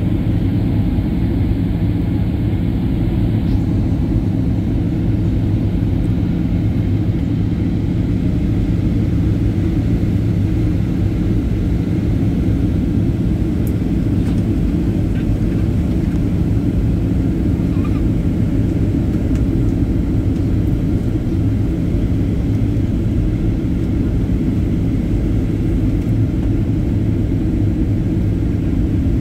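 Jet airliner cabin noise heard from a window seat: a steady low rumble of the engines and rushing air, even and unbroken, with the plane on descent.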